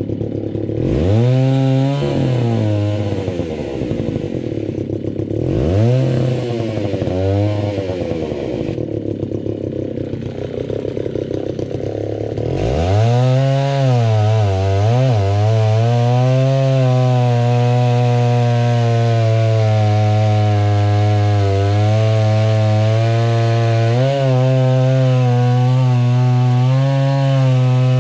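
Alpina Pro 120 chainsaw's 120cc two-stroke engine idling and revved up briefly three times, then from about 12 seconds in held at high revs, cutting into a large log section, the pitch dipping briefly as the chain takes the load.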